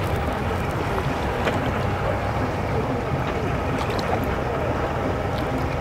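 Boat engine running steadily, a low rumble with a faint steady whine, mixed with wind on the microphone.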